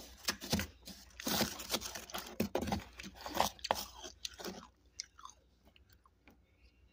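A person biting and chewing freezer frost, with dense crunching that dies away about four and a half seconds in, leaving a few faint clicks.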